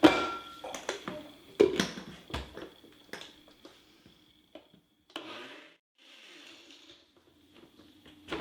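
Kitchen clatter: a few sharp knocks of hard kitchenware in the first three seconds, the loudest right at the start, then two short quiet rushing noises a little past the middle.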